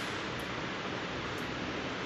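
Steady, even hiss of cable-twisting machinery running.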